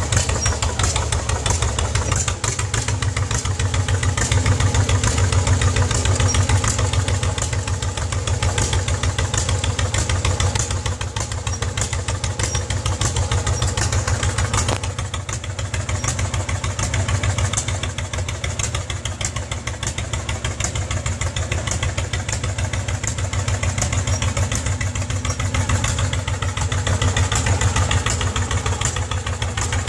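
Antique tractor's engine running steadily with a fast, even exhaust beat as the tractor is driven slowly along.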